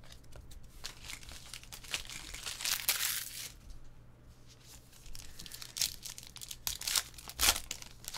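Trading-card pack wrappers being torn open and crinkled: crackly tearing and rustling in two spells, one around three seconds in and another near the end.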